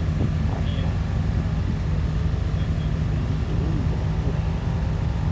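Single-seater race car's engine idling steadily, with a pulsing low rumble.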